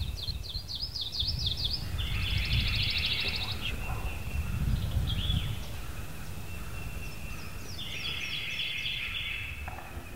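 A wild turkey gobbling twice, each gobble a rattling call about a second and a half long, among songbirds singing, over a low rumble. Music starts right at the end.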